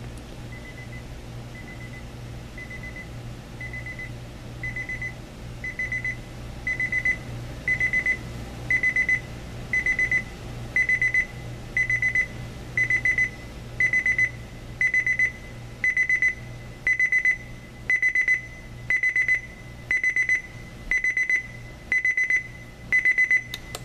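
Homedics SoundSpa projection alarm clock radio's beep alarm going off: short high beeps about once a second, starting faint and growing steadily louder for the first ten seconds or so, then holding at full volume. This is its ascending beep alarm.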